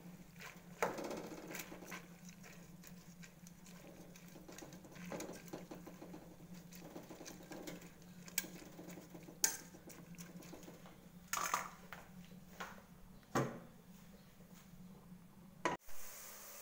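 Cassava leaves boiling in an aluminium pot, with a utensil clinking and knocking against the pot now and then over a steady low hum. The hum cuts off suddenly near the end.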